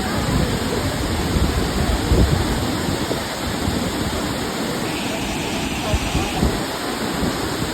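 Steady rushing of the Burney Falls waterfall, a dense even roar of falling water with uneven low rumbles beneath it.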